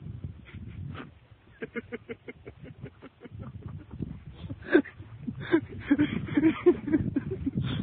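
Footsteps and handling noise of someone hurrying across grass with the recording phone. In the second half, rhythmic pulses of about three a second grow louder.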